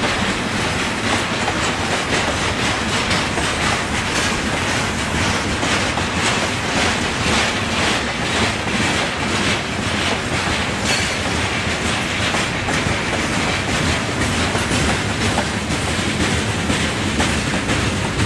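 Freight train wagons, covered hoppers and a boxcar, rolling past. The wheels clack over the rail joints in a steady, continuous rhythm of clatter.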